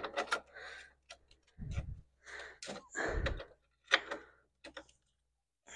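Hands working a battery hold-down into place on a car battery: irregular small clicks and knocks of metal and plastic, with two dull thuds about a second and a half and three seconds in.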